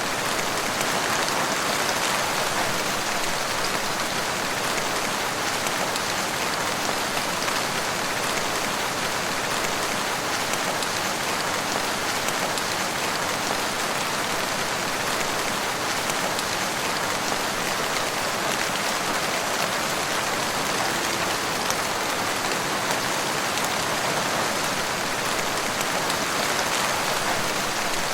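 Steady rain falling on a forest, an even dense patter of drops with no thunder.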